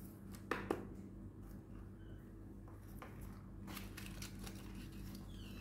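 Quiet room with a low steady hum; two sharp clicks about half a second in, then faint light rustling.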